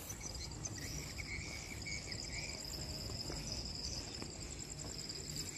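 Night insects trilling steadily: a high, continuous pulsing chorus over faint low background noise.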